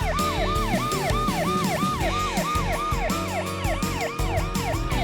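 Police car siren in a fast yelp, its pitch rising and falling about three times a second.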